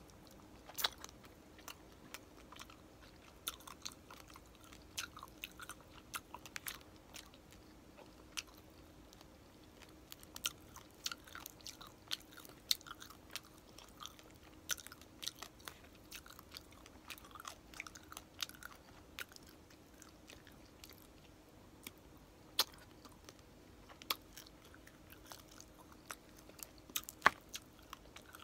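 Close-up mouth sounds of eating crispy pata (deep-fried pork leg): wet chewing with irregular sharp crunches and crackles, plus the crisp skin being torn apart by hand. There is one loud crack near the end.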